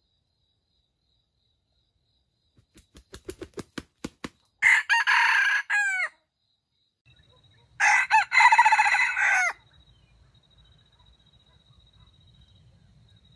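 Red junglefowl rooster crowing twice, each crow about a second and a half long and ending in a falling note. The first crow is preceded by a run of about ten sharp claps that quicken and grow louder.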